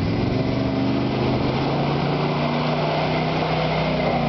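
1992 GMC Z71 pickup's engine pulling steadily as the truck drives through mud, its pitch climbing slightly as the truck comes close.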